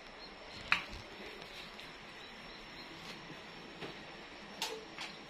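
Light clinks of a metal spoon against a plate and serving dishes as food is spooned out. One sharper clink comes under a second in, and a few fainter ones follow near the end.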